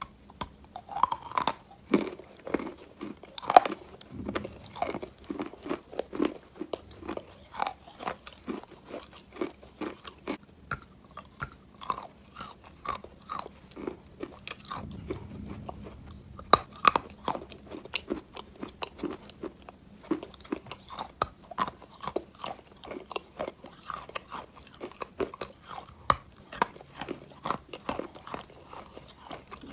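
Close-up crunching and chewing of wet chalk dipped in clay water: repeated bites and crackly chews, several a second, with occasional louder snaps.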